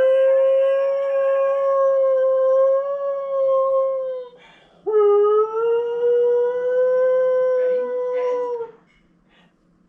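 Husky howling: two long, steady howls, the first breaking off about four seconds in and the second starting half a second later with a short upward slide in pitch, ending about nine seconds in.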